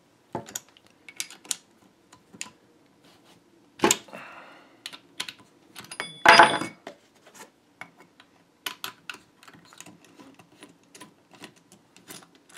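A 6 mm hex key clicking and clinking in the grip bolt of a Mossberg 500 shotgun as the bolt is loosened and unscrewed. Two louder metallic clanks come about 4 and 6 seconds in, the second one ringing briefly.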